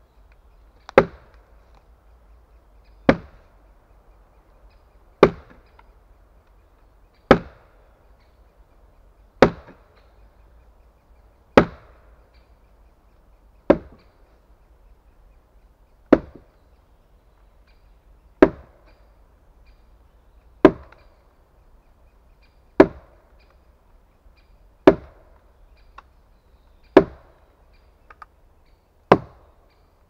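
Heavy wooden mallet striking wooden wedges set in a log to split it lengthwise. A single sharp wooden knock comes about every two seconds at an even pace, about fourteen in all.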